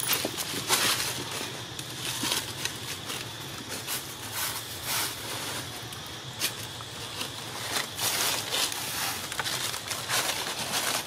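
Dry leaf litter rustling and crackling in irregular bursts.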